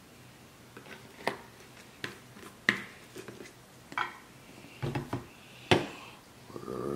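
A plastic ranch-dressing squeeze bottle handled while dressing is poured into a small glass cup: a string of about seven sharp clicks and knocks, the loudest near the end as the bottle is set down on the table.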